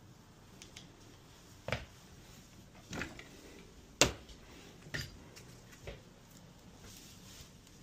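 Small plumbing hand tools and fittings being picked up and handled: five separate short clicks and knocks, about a second apart, the sharpest about four seconds in.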